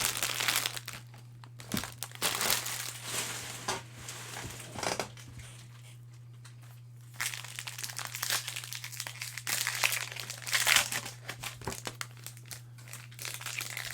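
Cellophane trading-card pack wrappers crinkling and rustling as packs are handled, in irregular bursts with a pause of about a second and a half near the middle. A steady low electrical hum runs underneath.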